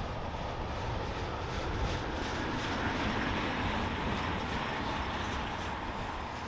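Freight train rolling past, a steady rumble and rush of wheels on the rails.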